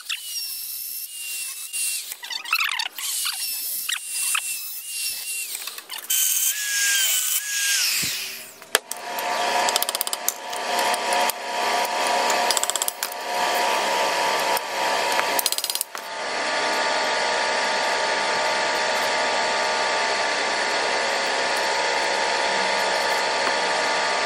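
Power tools working steel rod: high wavering squeals with knocks and clicks for about the first eight seconds, then a motor running steadily, evenly from about halfway on.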